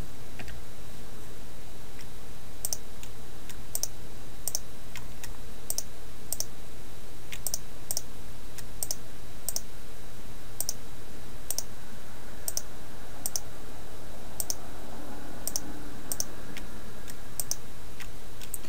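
Computer mouse clicking, a little over twenty sharp clicks at uneven spacing, about one a second, as pieces are selected one after another on screen. A steady low electrical hum sits underneath.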